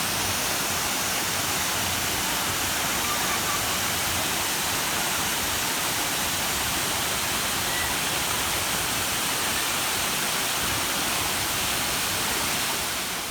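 Waterfall running with a steady, even rush of falling water.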